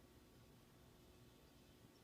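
Near silence with a faint steady hum: a 1980s CEI 42-inch Builder ceiling fan running.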